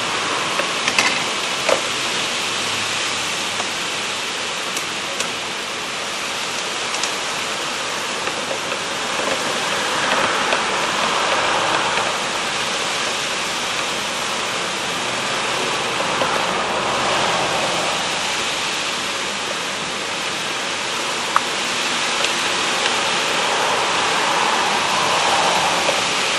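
Heavy rain falling steadily in gusty wind, the rush swelling and easing a couple of times, with a few sharp ticks of drops striking nearby.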